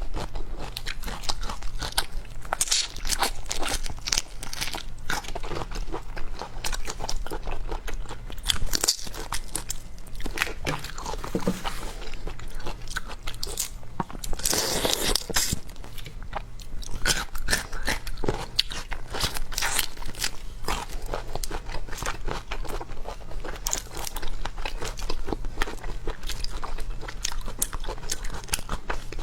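Close-miked eating of shrimp with garlic: irregular crunchy bites and wet chewing throughout, with one especially loud crunch about halfway through.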